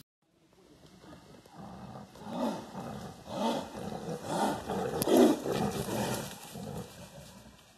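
Siberian tiger roaring: a series of roars about a second apart, the loudest about five seconds in, dying away near the end.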